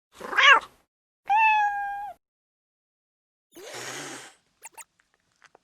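An angry domestic cat: a short, sharp meow, then a longer held meow, then a hiss about three and a half seconds in.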